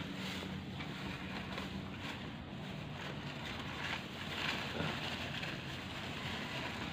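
Steady outdoor background noise with light wind on the microphone.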